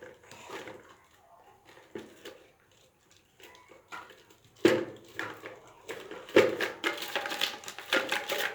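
Objects being handled: a few faint clicks, then from about halfway a run of sharp knocks and clatter.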